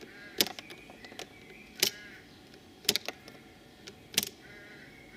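A screwdriver blade knocking the push-on blade connectors of battery link cables off sealed lead-acid battery terminals one at a time: about five sharp metallic clicks, roughly one a second.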